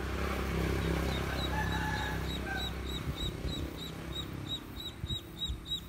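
A duckling on a fishing line as live bait, peeping: a high, short peep repeated about three times a second, starting about a second and a half in. A low rustling noise lies under it in the first half.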